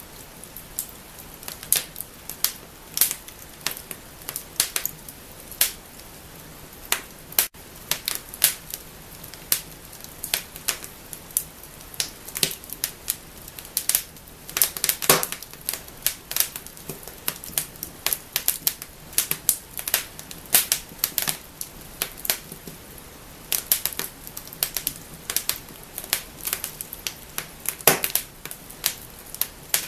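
Wood fire in a fireplace crackling and snapping: irregular sharp pops and cracks over a faint steady hiss of flames, with a few louder snaps now and then.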